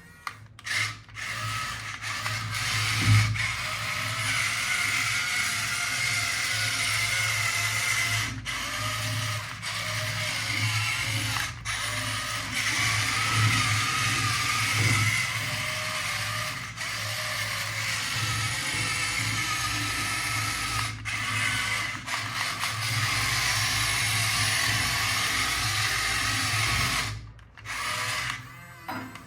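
Small electric motor and plastic gearbox of a remote-control toy vehicle whirring, its pitch wavering up and down, with short stops several times as it is driven.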